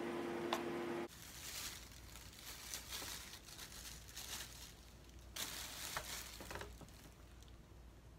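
Thin plastic bag rustling and crinkling as a hand handles it, in irregular bursts. A steady hum at the start cuts off suddenly about a second in.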